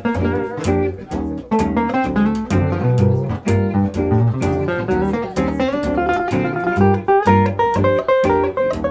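Gypsy jazz band playing an instrumental passage: fast picked single-note lines on a Selmer-style acoustic guitar, over rhythm guitar chords and a walking double bass on the beat.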